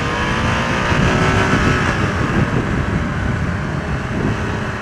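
Ducati Monster 695's air-cooled L-twin engine accelerating under way, its pitch rising for about the first two seconds, with rough wind rush over the microphone.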